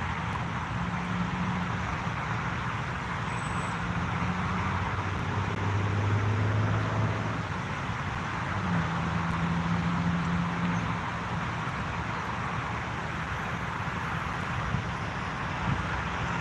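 Steady outdoor background of distant traffic noise, with low engine hums that come and go.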